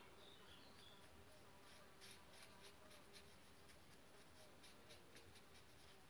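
Faint scratching of an ink brush dabbing and stroking across newspaper: a run of short, irregular strokes starting about a second in.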